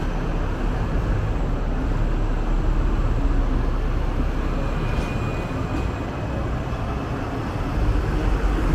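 Hong Kong double-decker tram running along its rails: a steady rumble of wheels and motor, with a brief faint high squeal about five seconds in.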